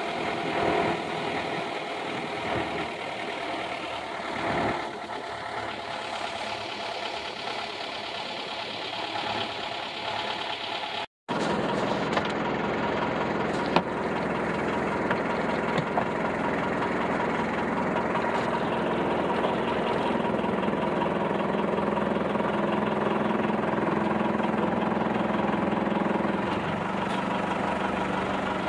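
Motor whaleboat's engine running steadily while under way. The sound breaks off for a moment about eleven seconds in, then comes back steadier and a little louder.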